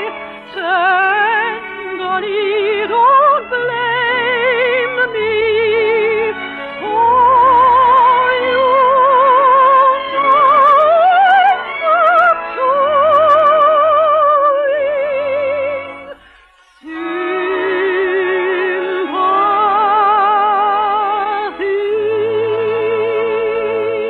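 A soprano sings an operetta song in full operatic voice, with wide vibrato on long held high notes, over an orchestra, heard through an old, dull-sounding broadcast recording. The singing stops briefly about two-thirds of the way through, then comes back on a lower held note.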